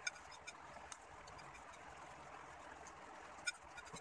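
Faint clinks of metal spoons and forks against ceramic plates, a few light taps and one sharper clink about three and a half seconds in, over a low steady hiss.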